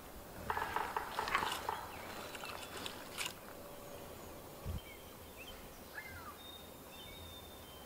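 Wild turkey tom gobbling about half a second in: one rapid rattling call about a second long. After it, small birds chirp faintly, with a sharp click about three seconds in and a dull thud a little later.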